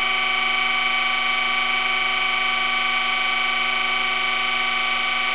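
Surface grinder running with its wheel taking a light finishing cut on a hardened steel drill bushing, which is turned on a tapered mandrel by motor-driven electric centers. The sound is a steady whine made of several even tones that holds constant throughout.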